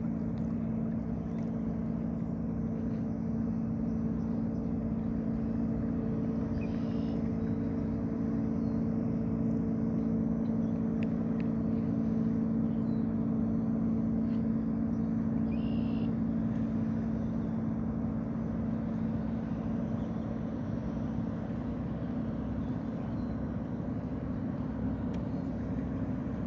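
Boat engine running at a steady speed, an even low hum that holds its pitch throughout.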